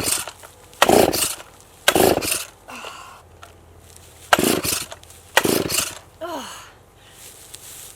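Stihl two-stroke chainsaw being pull-started on half choke: five sharp yanks of the recoil starter cord, three quick ones then two more after a short pause, each a brief rasping whir as the engine turns over. The engine does not catch.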